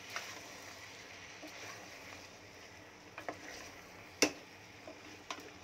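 Mutton pieces sizzling in oil in a metal pressure cooker while a wooden spatula stirs them, with scattered knocks of the spatula against the pot; the sharpest knock comes about four seconds in.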